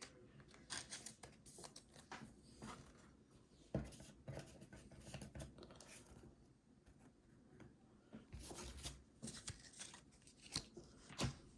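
Faint handling noise of trading cards and their packaging: scattered light clicks, rustles and short tearing or crinkling sounds, a few sharper ones about four seconds in, past eight seconds and near the end.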